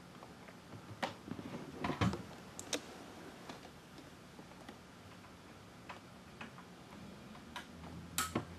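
Synology DS215j NAS booting up: irregular sharp clicks and ticks from its hard drives spinning up and seeking. A low steady hum comes in near the end.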